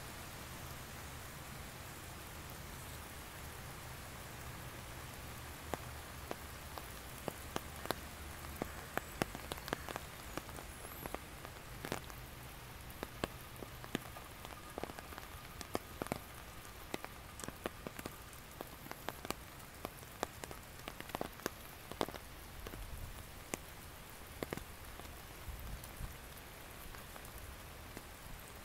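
Rain falling steadily on garden foliage, a soft even hiss. From about six seconds in, many separate drops tap sharply and close by, at irregular intervals.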